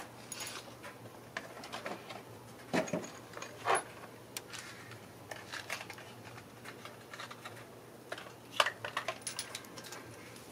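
Light metallic clicks and clinks of hand tools being handled while fitting spark plugs, scattered, with a quick run of clicks near the end.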